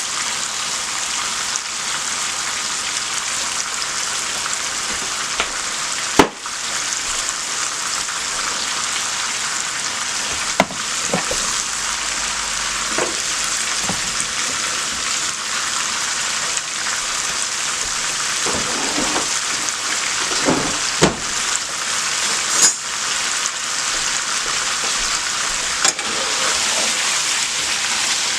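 Chicken pieces sizzling steadily in hot oil in a pot as they start to cook, with a few sharp knocks scattered through.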